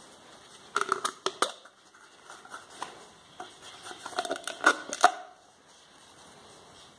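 Two bursts of sharp clicks and clatter from a plastic measuring cup and containers being handled, about a second in and again around four to five seconds in.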